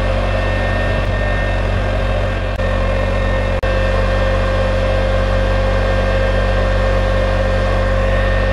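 Hujia MMA-250 inverter stick welder switched on and idling, its cooling fan running at full speed with a steady whine over a low electrical hum. A short click and dip about three and a half seconds in.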